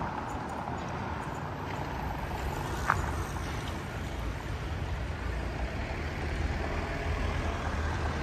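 City street ambience with the low rumble of a motor vehicle, growing stronger in the second half, and one short sharp click about three seconds in.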